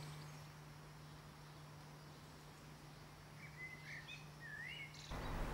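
Quiet outdoor background with a steady low hum. A small bird sings a few short, gliding chirps about three and a half to five seconds in. The background noise steps up suddenly near the end.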